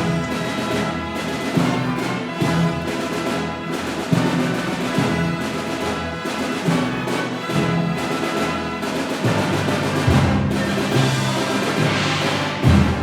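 Symphony orchestra playing, with timpani strokes and brass over the strings.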